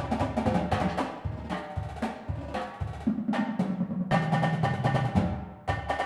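Marching drumline cadence for snare drum, tenor drums and bass drums, playing fast accented strokes and rolls, with the pitched bass and tenor drums moving between notes under the snare.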